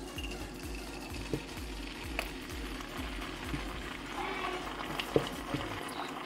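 Ketchup squeezed from a plastic squeeze bottle into olive oil in a small nonstick pan, the oil sizzling steadily with a few sharp squirts and clicks. Faint background music with a steady beat runs underneath and fades about four seconds in.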